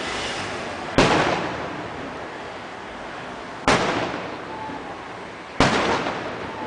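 Aerial fireworks shells bursting: three sharp booms about a second in, near the middle and near the end, each trailing off in a rolling echo, over a steady crackling hiss of lesser bursts.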